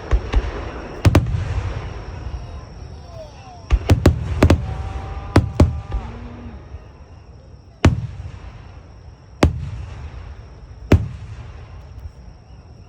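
Aerial firework shells bursting in a series of sharp booms, each followed by a rolling rumble. Several come in quick succession around four to six seconds in, then single booms about a second and a half apart.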